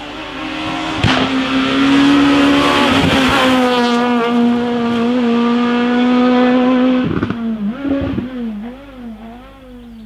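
Rally car engine revving hard as it approaches, held at high revs for several seconds. It gives a few sharp cracks around seven and eight seconds in, then its pitch wavers up and down as it drives away and fades.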